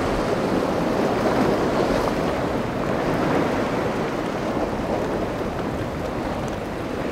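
Steady rushing noise of wind buffeting the microphone over breaking, churning seawater, with no distinct engine tone or sharp impacts.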